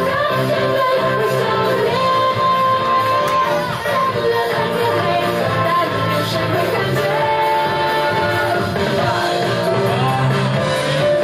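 Funk song with a singer, playing loud and steady.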